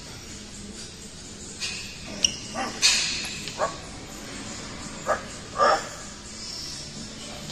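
A dog giving several short yips and barks, with a sharp click among them.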